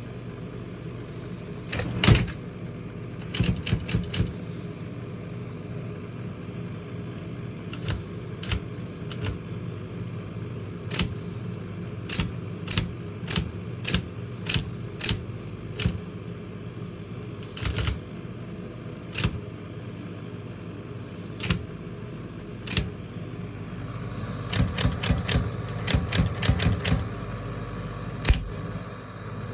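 1935 IBM Electromatic electric typewriter being typed on: sharp, irregular keystroke strikes over the steady hum of its running motor, with a quick run of strikes near the end.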